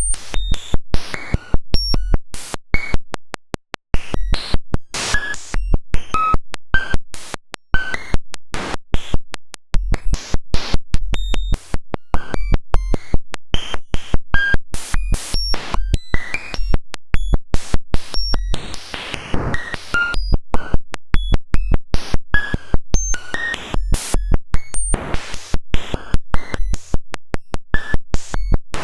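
Harsh digital noise made by writing a cellular automaton's normalized population count directly to the audio waveform: a dense, irregular run of clicks and brief buzzing tones that jump from pitch to pitch. A few short dropouts come in the first ten seconds.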